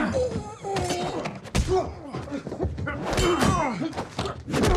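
Fight sound effects: heavy thunks and thuds of blows and a hard-shell suitcase striking, with the strongest hits about a second and a half in and near the end. Between the hits come the fighters' grunts and strained cries.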